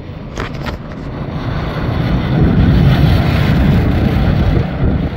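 Several small dirt-track race cars' engines accelerating together off the green-flag start, the combined engine noise building to a loud peak about halfway through and easing slightly near the end.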